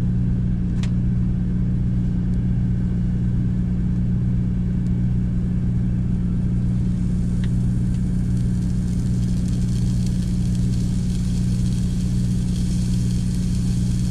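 Steady low drone of the semi truck's idling diesel engine heard inside the cab. From about halfway in, a faint high sizzle builds as the slab of bacon starts to fry in the cast-iron skillet.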